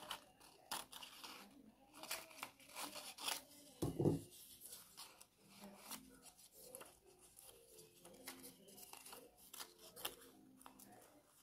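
Scissors snipping through dress fabric in short irregular cuts, with cloth rustling and one dull thump about four seconds in.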